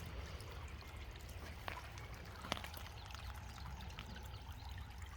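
Faint trickling water from a hillside spring, with a couple of short sharp clicks, the louder one about two and a half seconds in.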